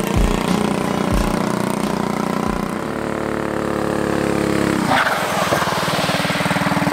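Off-road go kart's Predator 212 single-cylinder four-stroke engine running while the kart drives. About five seconds in the kart comes close and the engine's rapid firing beat becomes prominent.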